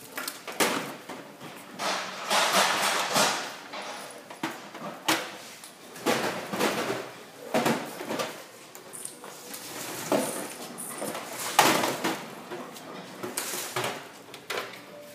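CRT computer monitors being set down and slid into place on a pallet: irregular knocks and thuds of their plastic casings, with several longer scraping slides.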